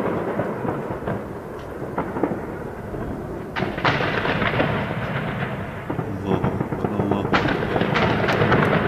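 Heavy gunfire from an armed clash: a dense, continuous crackle of shots, with sharper, louder cracks about three and a half seconds in and again a little after seven seconds.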